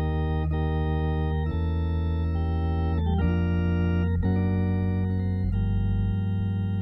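Hammond B3 organ played solo: held chords over a strong bass, moving to a new chord every second or so.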